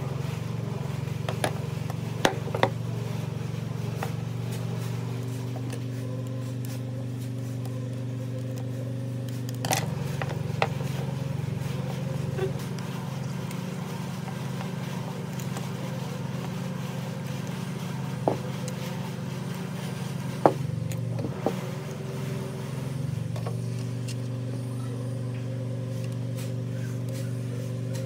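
A steady low mechanical drone, with sharp clicks and taps scattered through it from a screwdriver and small fan parts being handled during rewiring. The loudest tap comes about 20 seconds in.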